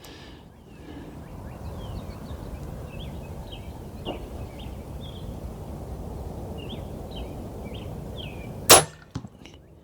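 A TenPoint Venom X crossbow firing: one loud, sharp crack of the string releasing near the end, followed by a couple of fainter clicks.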